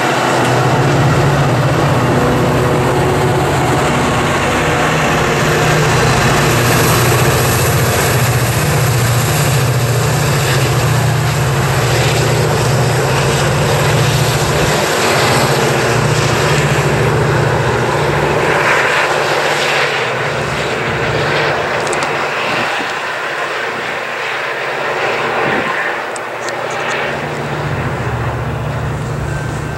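Diesel locomotive engine of a Metra commuter train running under load as the train pulls away, a loud steady low hum with rolling rail noise. About two-thirds of the way through the sound changes and eases, and the low engine hum of an approaching diesel locomotive builds again near the end.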